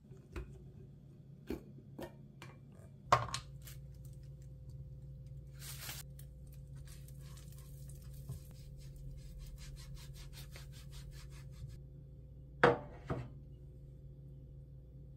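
A silicone pastry brush swishing melted butter around a nonstick frying pan in quick, rhythmic strokes, about four or five a second, coating the pan for crepes. A steady low hum runs underneath, and a few knocks of kitchen utensils are heard, two of them sharp and loud.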